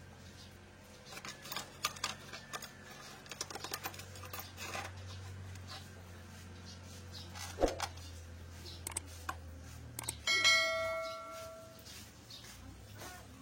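Small metal clicks and taps of hand work on metal parts over a steady low hum, with a bright metallic ring about ten seconds in, like a struck or dropped steel part, fading over about a second.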